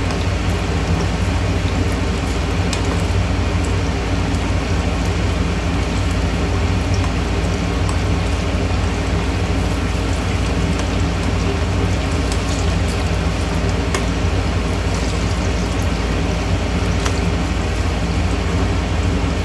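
Chicken pieces in a thin egg-white coating sizzling and crackling as they shallow-fry in hot refined oil, with a steady droning hum from the kitchen chimney's extractor fan underneath.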